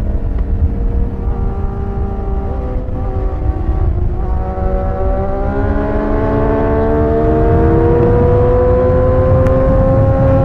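Sport motorcycle engine pulling hard through a gear: its note holds fairly level at first, then from about four seconds in climbs steadily as the bike accelerates. Wind rumble on the microphone from riding at highway speed runs underneath.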